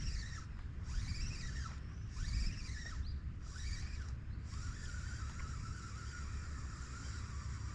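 An animal calling repeatedly, each call rising and then falling, about once a second, until about four and a half seconds in; then a steady wavering buzz takes over. A constant low rumble of wind and surf runs underneath.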